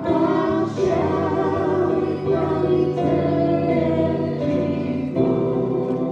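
Gospel hymn sung by a group of voices, with long held notes that waver in pitch.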